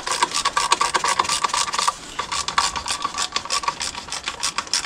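Rapid metallic clicking and rubbing as a motorcycle alternator cover, carrying the stator coil, is worked onto the engine over the magnet rotor.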